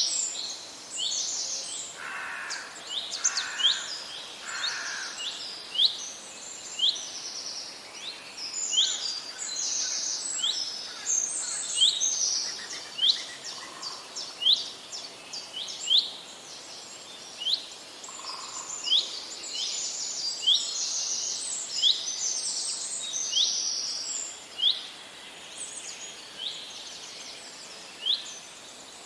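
Many songbirds singing at once in a dense chorus of high, quick chirps and trills, overlapping throughout, with a lower call repeated three times about two to five seconds in.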